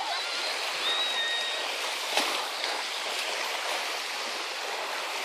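Steady wash of small sea waves on a sand beach, with a short, steady high tone about a second in and a single sharp tap just after two seconds.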